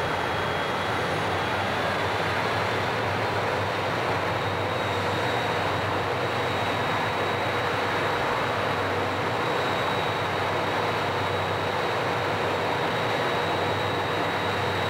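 Diesel-electric freight locomotives running steadily while standing with their train, their engines and compressors pumping up the train's air brakes before departure.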